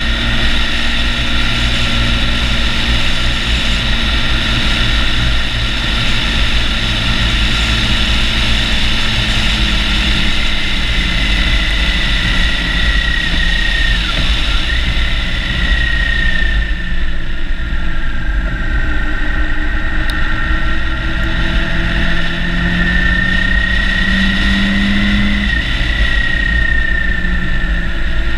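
Motorcycle being ridden along a road: engine running under steady wind rush and buffeting on the bike-mounted microphone, with a whine that slides up and down in pitch as the speed changes and dips sharply about halfway through. The rushing eases somewhat in the second half.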